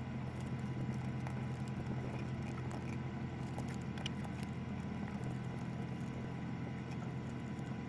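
Steady low hum of a ferry's machinery under way, with the soft crinkles, rustles and taps of origami paper being creased and folded by hand on a table.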